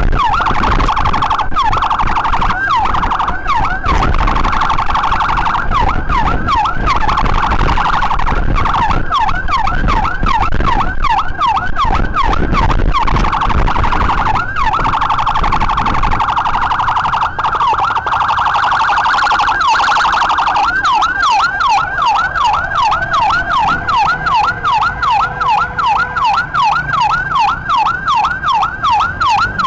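Ambulance's electronic siren running loudly, sweeping rapidly up and down in a fast yelp of about three to four cycles a second, with stretches in the middle where it holds a steadier tone, over rushing wind and road noise.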